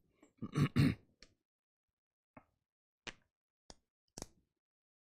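A person clears their throat twice, then four short, sharp clicks or taps at irregular intervals about half a second to a second apart.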